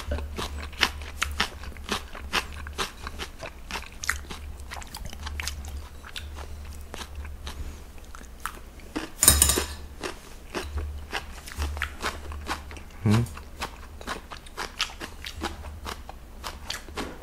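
A person chewing and crunching food close to the microphone, a dense run of small sharp crunches and mouth clicks. One louder, noisy sound stands out about nine seconds in.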